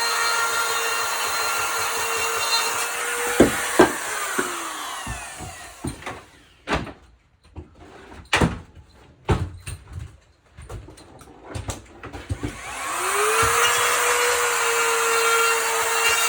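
High-speed drywall cutout tool cutting out a ceiling box hole in drywall, running with a steady high whine. It winds down about three and a half seconds in, and a spell of scattered knocks and taps follows. About twelve and a half seconds in, the tool spins back up and cuts again.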